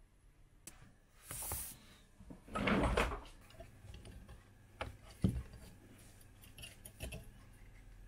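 Handling noises on an electronics repair bench as the board and tools are moved: a brief rustle, a louder scraping rustle about two and a half seconds in, then a few light clicks and knocks.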